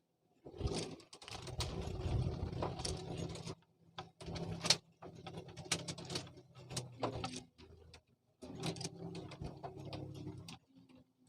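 Fishing reel being cranked in stop-start spells of a second or more, its gears clicking over a low hum.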